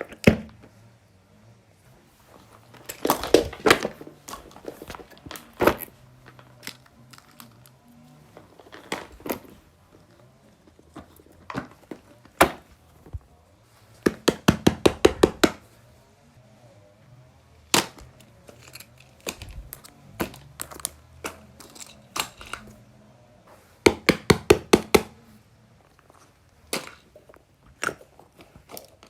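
Small plastic fidget toys being handled and pressed: bursts of rapid clicks and pops, several a second, with scattered knocks and some crinkling in between.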